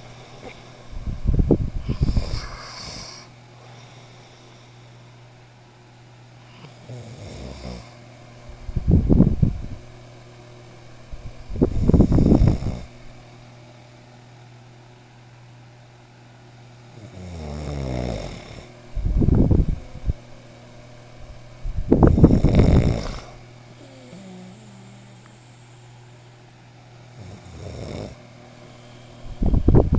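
A man snoring loudly in his sleep, one rasping snore every few seconds, some coming in close pairs.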